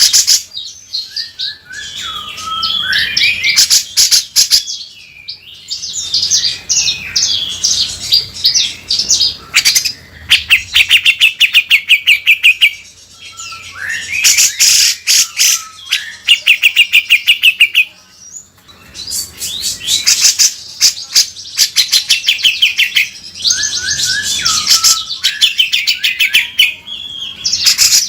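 Cucak jenggot (grey-cheeked bulbul) singing non-stop in a harsh, rattling style: bursts of fast, rasping rattled notes mixed with short falling whistles, repeated phrase after phrase with brief pauses.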